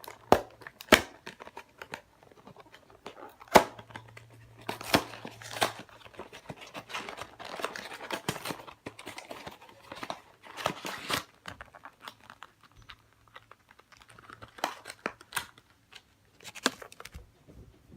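Packaging being unwrapped by hand: plastic wrap crinkling and tearing, in irregular rustling bursts with sharp snaps and clicks.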